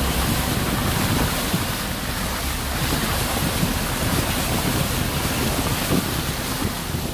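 Car's front tyre ploughing through floodwater, a steady rush of splashing spray, with wind buffeting the microphone held out of the window.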